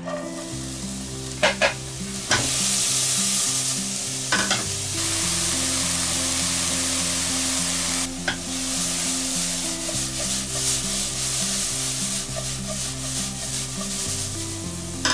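Diced onion, carrot and green pepper sizzling as they fry in hot oil in a non-stick pan, the sizzle setting in strongly about two seconds in as the vegetables hit the oil. A few sharp knocks of the spatula and tray against the pan sound in the first seconds, and the vegetables are stirred and tossed as they fry.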